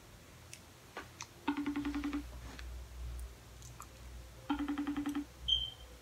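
Phone ringing out on an outgoing call, heard through the phone's speaker: a buzzy pulsing ring under a second long, about 1.5 s in and again three seconds later. A few light taps come before the first ring.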